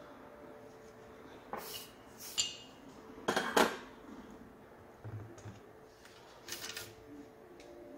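Metal soldering irons and tools clinking and knocking as they are handled and set down, a few sharp clicks with the loudest clatter a little past the middle, over a faint steady hum.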